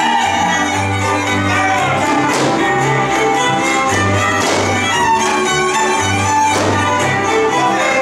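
Hungarian folk dance music led by fiddles over a steady bass line, with a sharp accent about every two seconds.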